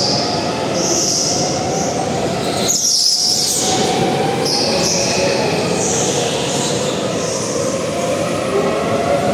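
A go-kart running steadily on the track, a continuous drone with brief high-pitched squeals coming and going about once a second.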